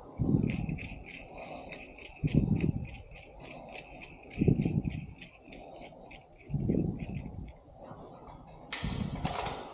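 Small metal pieces jangling and clinking in a quick, uneven run that stops near the end. Under it is a dull low sound about every two seconds.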